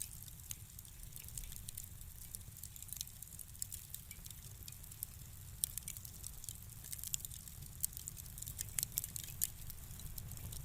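Fireplace fire crackling softly: irregular small pops and snaps over a low steady rumble.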